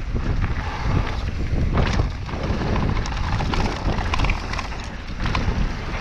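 Mountain bike ride downhill: wind rushing and buffeting over the microphone, with scattered knocks and rattles from the bike going over rough trail.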